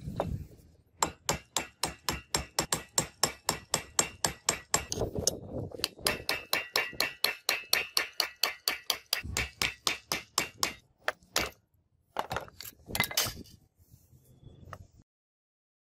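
Rapid hammer blows on a drift, knocking the old wooden handle stub out of the eye of a rusty hatchet head clamped in a steel vise, each strike leaving a short metallic ring. Two long runs of about five blows a second with a short pause between them, then a few scattered strikes.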